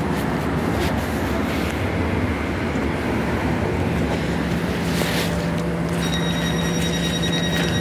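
Tyne and Wear Metrocar pulling into the platform and braking to a stop over a steady rumble. A low hum comes in about halfway through, and a high steady whine joins about six seconds in as it slows.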